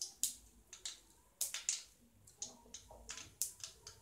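Mustard seeds spluttering in hot sesame oil in a kadai: irregular sharp little pops, about four a second, the sign that the oil is hot enough for tempering.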